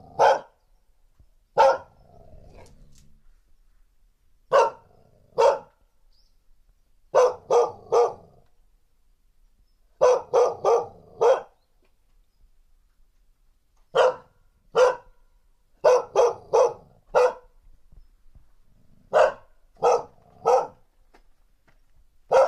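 Female dog barking in warning: short, sharp barks, some single and some in quick runs of two to four, with pauses of a second or more between them.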